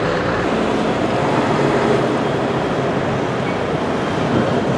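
Heavy diesel trucks passing close by, one after another, with their engines running steadily under the noise of tyres on the road.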